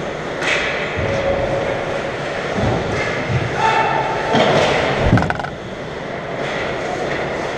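Ice hockey play echoing in an indoor rink: skate blades scraping the ice, with several dull thuds and a cluster of sharp stick-and-puck clacks about five seconds in. A brief held shout rises above it a little before the clacks.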